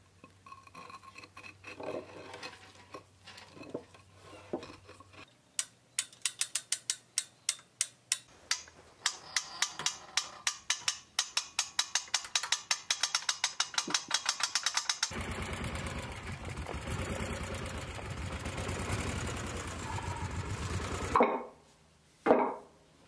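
Chain hoist on a steel lifting frame working its ratchet, a long run of rapid, even clicks at about three to five a second, as a stone block is lowered onto wooden rollers. After that comes a steady noise for about six seconds that cuts off suddenly, then two loud knocks near the end.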